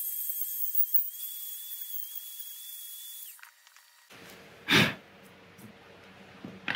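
Electric die grinder with an aluminum-cutting bit running at a steady high whine as it grinds away the aluminum of a T56 Magnum transmission case. It stops a little over three seconds in. Just before five seconds in comes one short, loud rush of noise.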